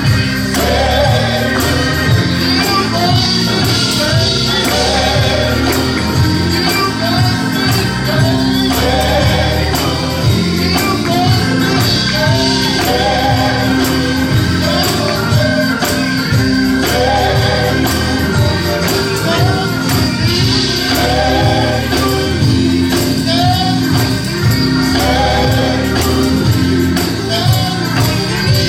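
Gospel music: a choir singing in short repeated phrases over a steady band accompaniment, with a tambourine keeping the beat.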